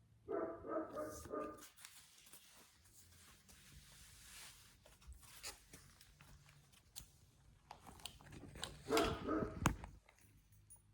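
A woman coughing: a short fit of several coughs just after the start and a louder fit near the end, with faint clicks and rustling in between.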